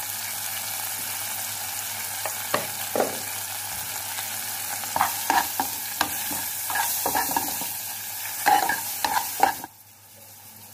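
Onion-tomato masala sizzling in a metal pan while a metal spoon stirs and scrapes through the freshly added ground spices. The scrapes come more often after a few seconds, and the sizzle drops away suddenly near the end.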